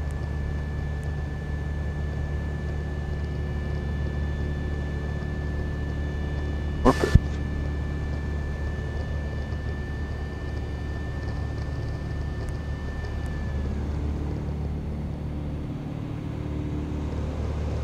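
Light single-engine propeller plane's engine running at high power in a nose-high power-on stall, heard inside the cabin, with the stall warning horn sounding one steady high tone that cuts off about two-thirds of the way through as the stall breaks and the nose drops. A brief crackle about seven seconds in.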